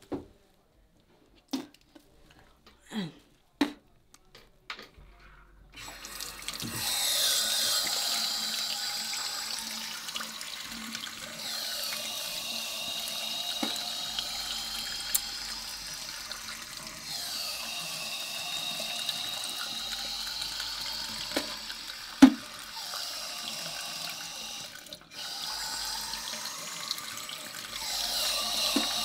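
A few clicks and knocks, then from about six seconds in a tap runs water into a sink. The sound of the stream shifts every few seconds, and one sharp knock comes partway through.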